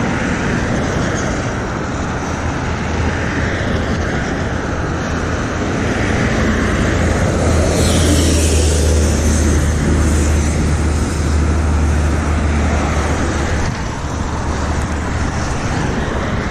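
Steady wind noise on the microphone of a camera riding along on a moving bicycle, a low rumble that swells and eases, with a brief louder hiss about halfway.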